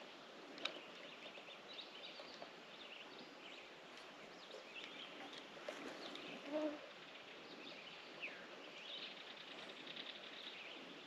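Faint outdoor ambience with scattered small bird chirps and trills. A short, lower-pitched call or squeak comes about six and a half seconds in.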